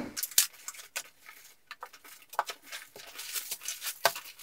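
Plastic produce bags crinkling and rustling as vegetables are lifted out of a backpack and set down on a wooden table, with a few small knocks. The crackling grows busier in the second half.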